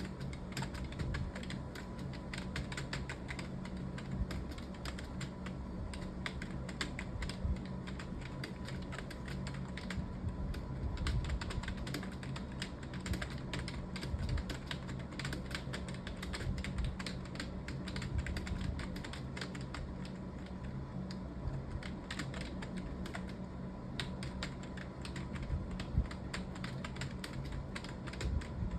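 Fast, continuous typing on a computer keyboard, keys clicking several times a second without a break, over a faint steady hum.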